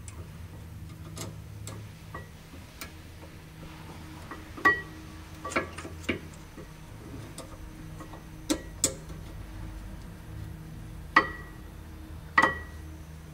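Metal tools and brake parts clinking against each other, about seven sharp ringing clinks at irregular intervals over a low steady hum.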